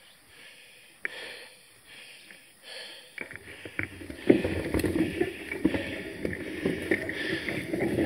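Mountain bike ridden along a narrow overgrown dirt singletrack: fairly quiet at first, then from about three seconds in a dense rustling and rattling with many small knocks as tall grass brushes the bike and the handlebar camera and the bike jolts over rough ground.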